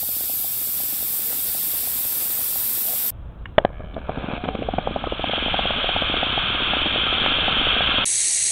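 Electrolysis-fed hydrogen–oxygen rocket test rig: gas hissing steadily with a fast crackle, a sharp pop about three and a half seconds in, then a louder steady hiss as the tiny engine's flame burns.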